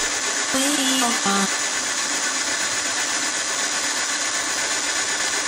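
Portable boring machine's rotating boring bar cutting metal as it reams out a worn kingpin/joint bore in a Case 150MX tractor's front axle, giving a steady, even machining noise from the motor and cutter.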